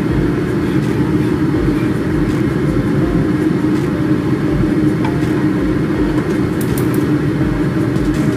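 Kitchen range hood extractor fan running steadily and loudly, a low hum with a rush of air, with a few faint light clicks near the end.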